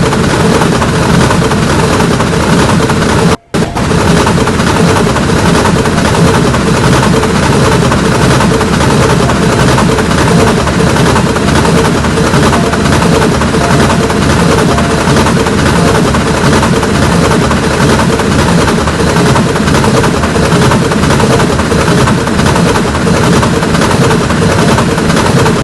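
Train No. 134 passing at close range: a loud, continuous rapid clatter of wheels on the rails, with a brief dropout about three seconds in.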